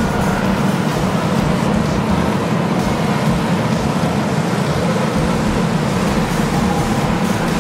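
Engines of a pack of racing go-karts running together as the field races around the track, a steady, dense drone.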